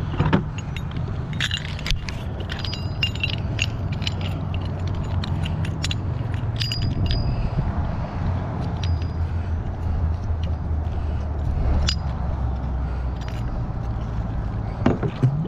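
Metal clinking and rattling of a galvanized folding grapnel anchor being handled, with louder knocks near the start and about 15 seconds in, over a steady low rumble.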